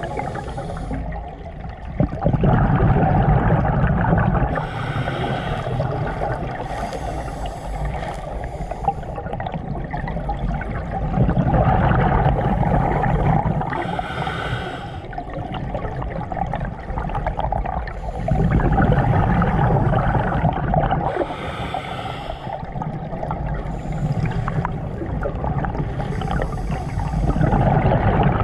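Scuba diver breathing through a regulator underwater: a hiss on each inhale, then a loud gurgling rush of exhaust bubbles on each exhale. There are four breaths, about eight seconds apart.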